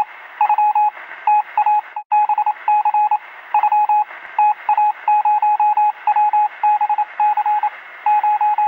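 Telegraph-style electronic beeping, like Morse code: a single high beep tone keyed on and off in short and longer pulses in irregular runs over a faint hiss, cutting out briefly about two seconds in. It serves as a news-intro sound effect.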